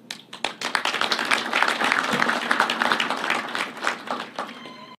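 Audience applauding: dense clapping that swells right after the start and thins out and fades near the end.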